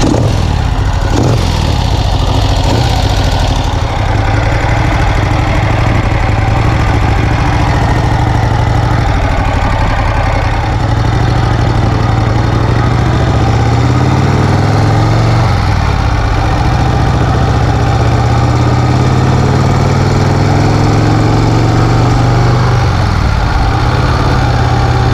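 1951 Vincent Rapide's 998 cc V-twin engine running on the move, its note rising and falling several times as the bike accelerates and changes gear.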